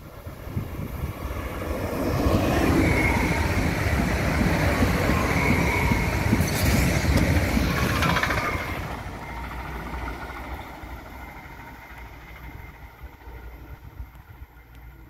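Stadler Flirt 3 electric multiple unit passing at speed: wheels rumbling on the rails with steady high tones over them. It builds about two seconds in, is loudest until about eight seconds in, with a brief hiss near the middle, then fades as the train runs away.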